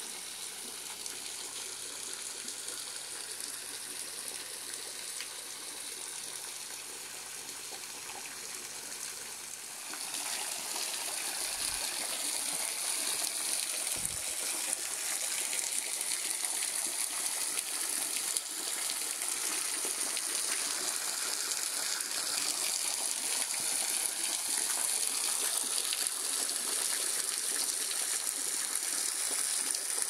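Small waterfall pouring in thin streams and drips off a mossy rock ledge into a pool, a steady splashing rush that grows louder about ten seconds in.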